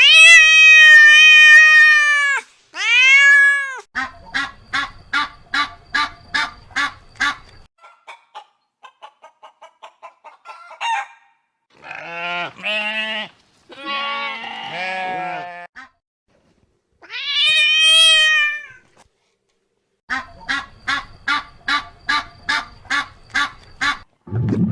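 Farmyard fowl calling in turn: long arched crowing calls from a rooster at the start and again later, runs of short repeated clucking calls, and a stretch of lower-pitched calls in the middle, with brief silences between the clips.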